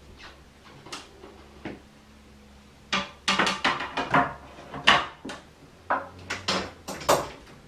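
Aluminium snake rack parts being handled and fitted: a few faint knocks, then from about three seconds in a quick run of sharp metallic clanks and knocks with a little ringing.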